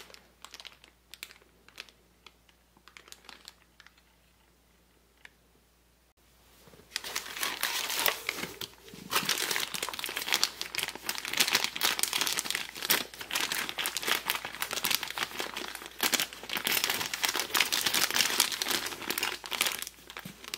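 Packing material being handled during an unboxing: a few faint clicks and taps, then from about seven seconds in a dense, continuous crinkling and crumpling.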